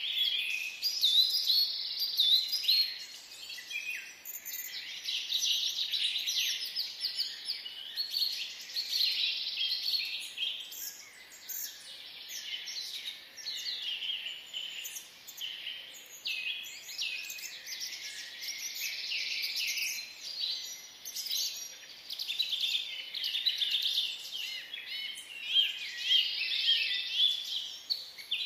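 Many small birds chirping at once, a dense run of short, high, overlapping chirps that keeps going, swelling and easing off.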